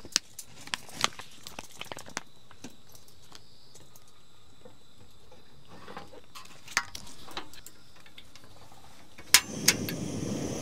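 Camp cooking: small clicks and clinks of utensils and cookware, a quick run of them at first and a few more later. Near the end two sharp clicks are followed by a steady rushing noise that starts and keeps going.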